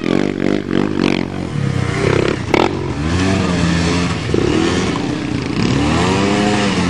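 Quad ATV engines revving up and down as the four-wheelers ride and turn on a dirt track, the pitch rising and falling several times. There is a sharp knock about two and a half seconds in.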